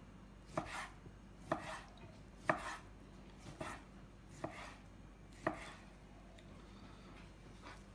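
Kitchen knife slicing raw chicken breast into thin slices on a cutting board, the blade knocking the board six times at about one cut a second, then stopping about five and a half seconds in.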